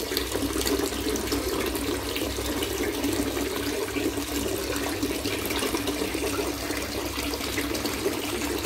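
Water falling steadily from a small wall waterfall and a pipe outlet into a koi pond, a continuous splashing.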